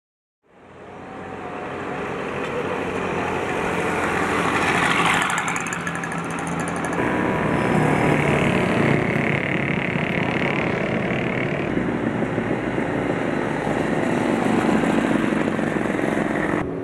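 Road traffic passing by, a steady wash of vehicle noise that fades in from silence over the first couple of seconds.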